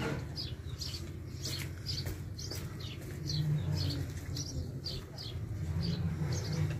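Small birds chirping: short, high, falling chirps about three a second, over a low steady rumble.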